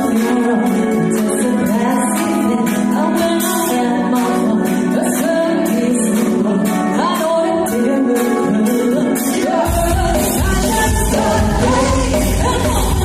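Pop music with singing over a steady beat. A deep bass comes in near the end.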